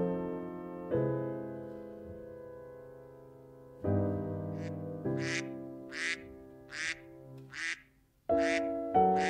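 Piano music with slow, held chords, and from about halfway a duck quacking five times, about one quack every three-quarters of a second.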